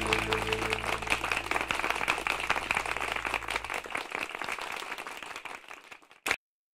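Applause fading out over about six seconds, while the last low held notes of music die away in the first few seconds. A brief sharp burst just before the sound stops.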